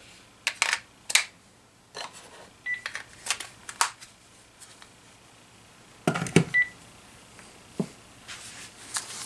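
Sharp plastic clicks and knocks as rechargeable batteries are fitted into a Panasonic cordless phone handset and its battery cover is snapped shut, with two short high electronic beeps from the phone, one about a third of the way in and one about two-thirds in.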